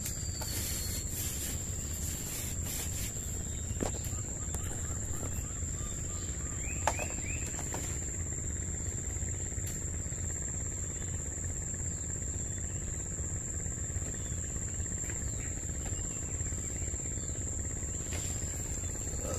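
An insect's steady high-pitched trill, with a low steady rumble beneath it and a few faint clicks; a short, sharper sound stands out about seven seconds in.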